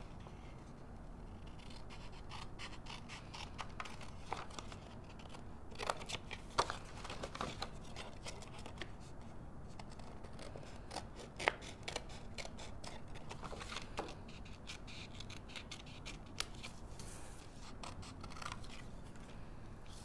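Fine-tip scissors snipping through patterned scrapbook paper: a faint run of short, irregular cuts with scattered sharper clicks.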